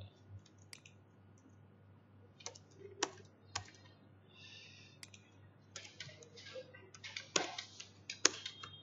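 Computer keyboard being typed on: a few scattered keystrokes, then a quicker run of keys in the last three seconds.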